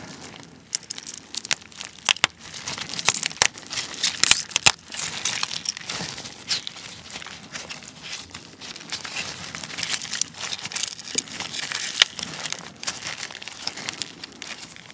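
Soy-sauce-marinated raw crab (ganjang gejang) body being squeezed and pulled apart by gloved hands: wet squishing and shell cracking, with many sharp cracks and crackles, the busiest stretch in the first five seconds.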